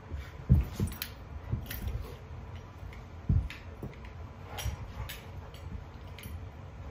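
Two Portuguese water dogs, a puppy and an adult, wrestling in play: irregular thumps of bodies and paws on the rug, with scattered sharp clicks. The loudest thumps come about half a second in and just after three seconds.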